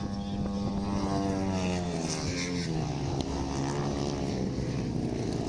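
Longtrack racing motorcycle's single-cylinder engine running hard as it passes, its pitch falling steadily over the first few seconds and then holding lower as it goes away into the bend.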